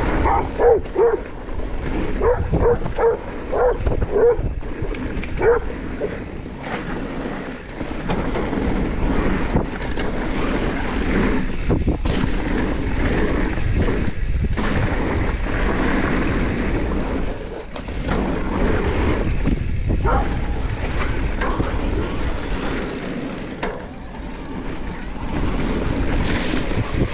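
Electric mountain bike riding down a dirt singletrack, heard from a chest-mounted camera: a steady rush of tyre noise and rattling over the bumps of the trail, with wind on the microphone. A run of short high-pitched squeaks, about two a second, comes in the first few seconds.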